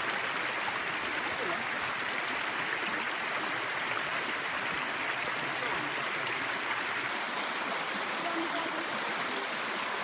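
Shallow rocky stream running over stones: a steady, even rush of water.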